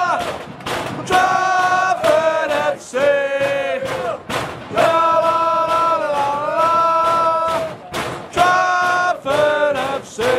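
Football away fans chanting loudly in unison, drawing out long sung notes, with regular sharp beats running through the chant.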